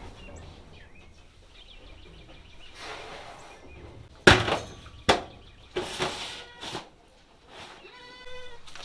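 Baby goats bleating, with a bleat near the end, and two loud sharp knocks about four and five seconds in among rustling, handling noises.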